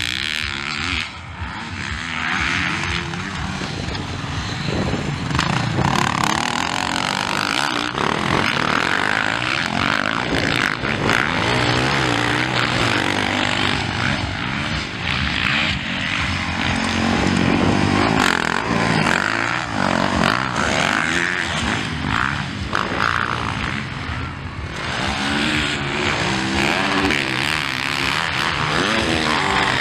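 Motocross dirt bike engines revving hard, the pitch climbing and dropping over and over as the riders accelerate and shift through the track.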